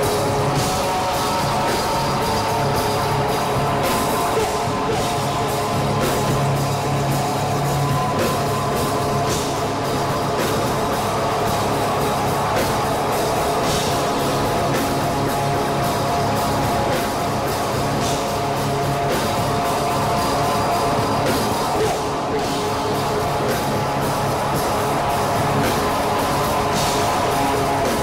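Live rock band playing loudly: electric guitar holding sustained chords over a drum kit, with frequent drum and cymbal hits.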